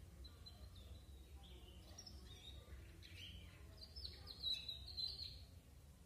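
Young domestic canary giving faint, scattered chirps, with a brief louder run of quick twittering notes about four to five seconds in, over a low steady background hum.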